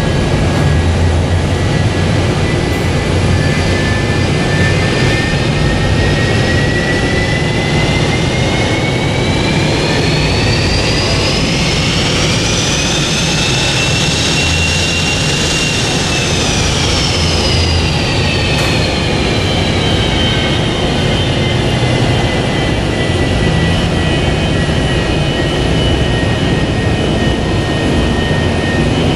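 McDonnell Douglas MD-82's rear-mounted Pratt & Whitney JT8D turbofans running while the jet taxis: a steady low rumble with a high whine that climbs in pitch to a peak about halfway through, then falls back.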